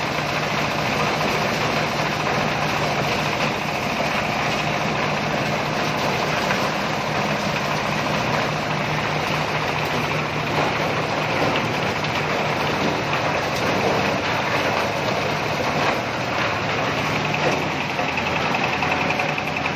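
Engine-driven corn sheller for unhusked cobs running steadily on a test run, a continuous mechanical noise with a constant low hum.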